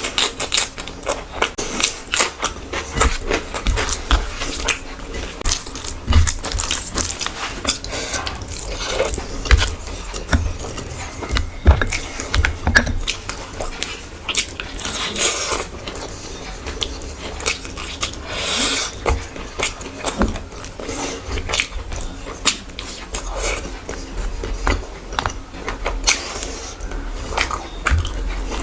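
Close-miked eating sounds: a person chewing and biting food, with many short clicks and smacks of the mouth.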